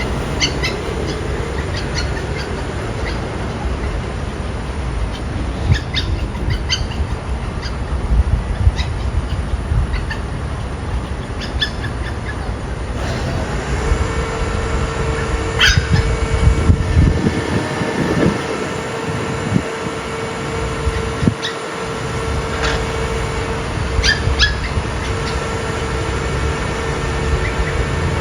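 Dogs barking in short, scattered bursts over a steady rumble of traffic noise. A steady hum starts about halfway through.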